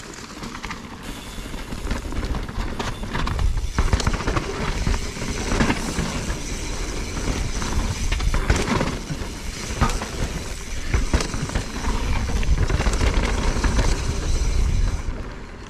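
Mountain bike descending a dirt trail, heard from an action camera mounted on the rider or bike: wind buffeting the microphone, tyres rolling on dirt, and the bike rattling and knocking over bumps and roots. The noise drops away suddenly near the end.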